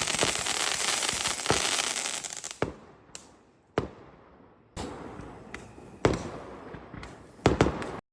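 Fireworks going off: a dense crackle that dies away over the first two and a half seconds, then separate sharp bangs, with several close together near the end.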